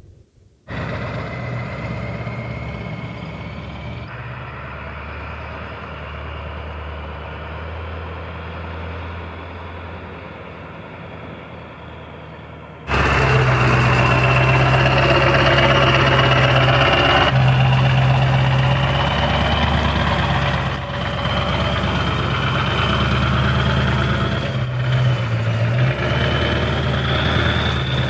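1996 Ford F350's 7.3 L Power Stroke turbo-diesel V8 running at low speed as the truck crawls over a rocky 4x4 trail, with a high whine above the engine note. It gets much louder about halfway through.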